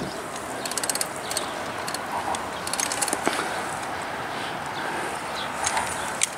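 Steady outdoor background noise broken by three short runs of rapid, fine mechanical clicking: once about a second in, again near the middle, and once near the end.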